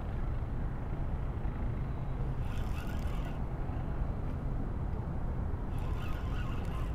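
Spinning reel being cranked in two short spells, about two and a half seconds in and again near the end, winding line against a heavy fish, a dogfish shark. A steady low background rumble lies under it.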